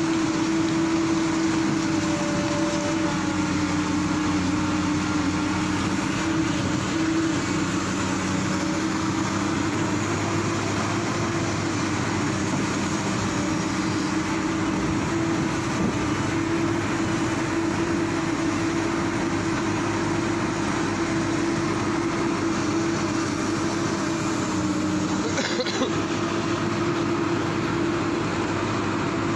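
Heavy diesel engine of earthmoving machinery, such as an excavator, running steadily at a constant speed.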